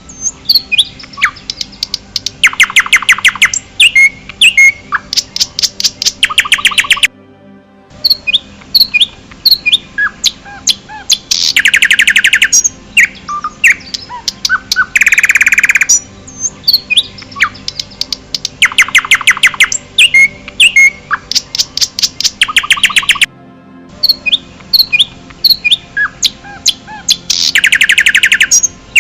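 Songbirds singing in a forest: rapid loud trills alternate with scattered short chirps and whistles. The birdsong repeats as a loop, with brief silent dropouts about 7 seconds in and again near 23 seconds.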